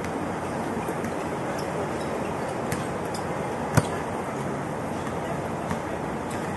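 Basketball bouncing on an outdoor hard court: a few separate sharp knocks, the loudest about halfway through, over a steady background hum of city noise.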